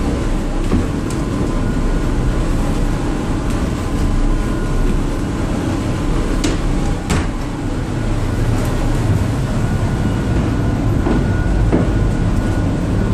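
Steady low rumble of an underway crew boat's engines and machinery, heard through the hull inside the accommodation, with a couple of sharp knocks about halfway through.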